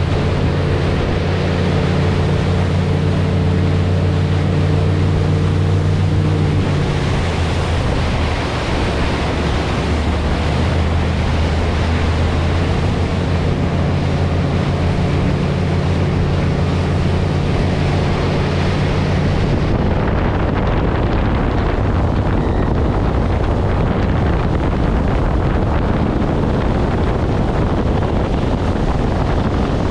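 Motorboat engine running steadily at speed with a low hum, under the rush of churning wake water and wind buffeting the microphone. The engine hum is strongest in the first several seconds and again in the middle, then sinks into the water and wind noise.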